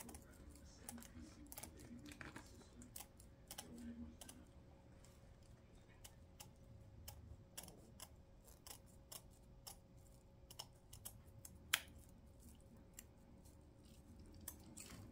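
Scissors snipping through metallic mesh along glued pipe-cleaner petal outlines: faint, irregular clicks and snips, with one sharper snip about three quarters of the way in.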